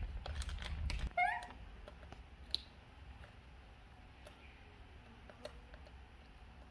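Plastic snack bag rustled and handled, then just after a second in a brief squeaky call from a baby monkey that rises in pitch a few times. After that come faint scattered ticks and crunches as it eats crispy snack pieces.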